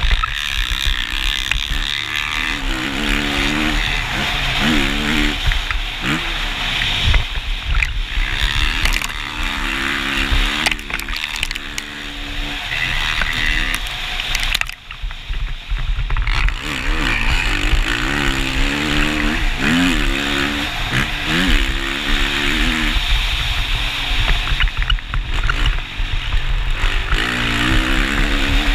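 2019 Kawasaki KX450's single-cylinder four-stroke engine revving up and dropping back over and over as it is ridden hard through the gears, over a steady rushing noise. About halfway through, the throttle is briefly closed and the engine note drops away before picking up again.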